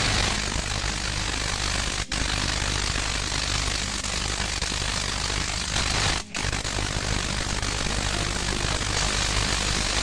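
Spark-gap Tesla coil driven by two microwave oven transformers running, a steady loud buzzing crackle of the spark gap and the arcs off the topload. It cuts out briefly twice, about two seconds in and again just past six seconds.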